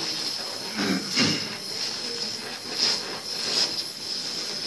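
Oxy-acetylene torch flame hissing steadily while it heats a piece of aluminium, with a brief louder rush about a second in.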